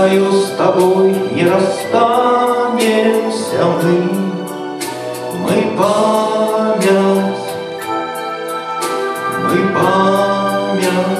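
A voice singing a song into a microphone with grand piano accompaniment, holding long notes.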